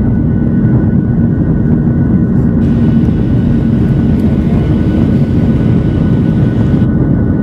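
Jet airliner engines at climb power just after takeoff, heard from inside the cabin beside the wing: a loud, steady rumble with a thin, steady whine above it.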